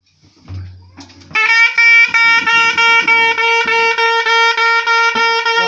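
Bağlama (long-necked Turkish saz) played with quick plectrum strokes, a melody over a held drone note. It starts suddenly about a second and a half in, after a brief low rumble.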